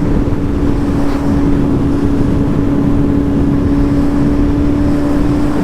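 Suzuki GSX-S750's inline-four engine running at a steady cruising speed, holding one constant pitch, under a heavy rush of wind on a naked bike.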